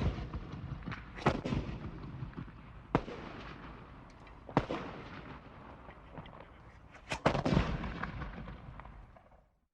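Gunshots on a shooting range: about seven shots at irregular spacing, a couple of them fired close together, each followed by a long echoing tail.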